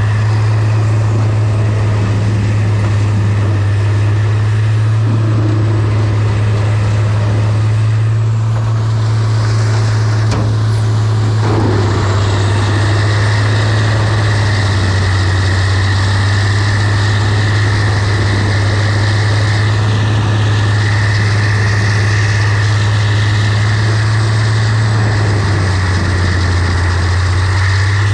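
Mercedes-Benz Arocs truck's diesel engine running with a steady low drone, its pitch shifting slightly a few times.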